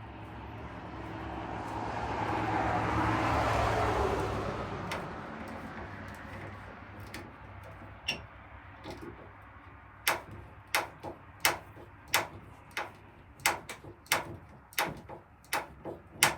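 Light hammer taps on cupboard hardware, about one every 0.7 seconds through the second half. Before them, a rushing noise swells and fades over the first several seconds.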